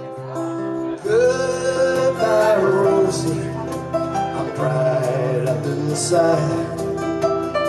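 Live acoustic country band playing between sung lines: acoustic guitars and banjo. About a second in, the music gets louder as a bending lead melody comes in over them.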